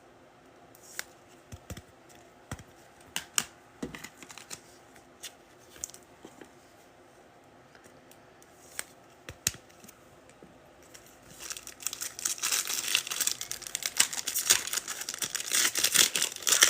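Scattered light clicks and taps of trading cards being handled, then about eleven seconds in a loud, dense crinkling and tearing as a foil trading-card pack wrapper is ripped open.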